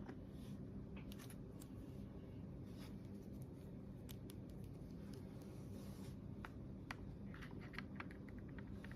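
Faint, scattered light clicks and taps of small plastic toy pieces being handled, over a steady low hum; the clicks come a little thicker near the end.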